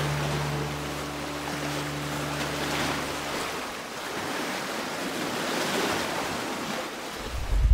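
Sea waves washing in slow swells, rising and falling about every three seconds, with a steady held musical tone fading out in the first half. A deep rumble comes in near the end.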